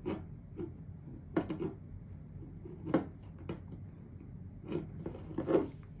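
Handling noise from a Leatherman Signal multitool as a thin cord is pushed through a hole in it: a few scattered small clicks and rustles from fingers and metal.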